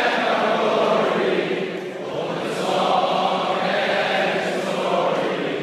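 A choir singing in held, sustained phrases, with a short breath between phrases about two seconds in.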